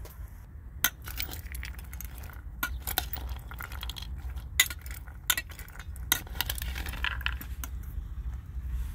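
Metal spoon clinking and scraping in an enamel bowl of dried chickpeas and white beans, with many sharp, irregular clicks as the dry pulses rattle against the bowl. A low steady rumble sits underneath.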